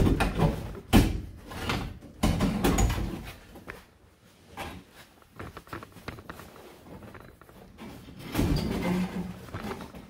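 Knocks, thumps and scraping as the bench seat of a Chevy 3100 pickup is worked loose and pulled out of the cab: two sharp knocks in the first second, a couple of seconds of rubbing and shuffling, a quieter stretch, then more handling noise near the end.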